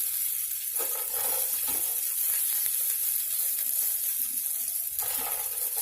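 Ghee sizzling in a hot pan: a steady, even hiss.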